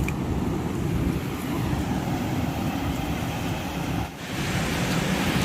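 Steady low rumble of wind on the microphone with surf at the shore, dipping briefly about four seconds in.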